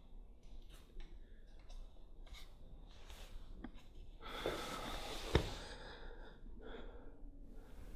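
Quiet breathing and the rustle of clothing as two people embrace, with a single sharp click about five seconds in.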